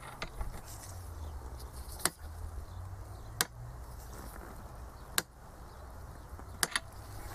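Torque wrench tightening the nozzle nut of a Delphi diesel injector held in a bench fixture. It gives sharp single clicks roughly every one and a half seconds, with a quick double click near the end.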